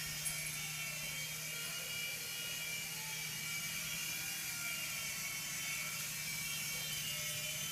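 Small remote-control toy helicopter flying, its electric motor and rotor giving a steady whir with a constant low hum and a thin high whine.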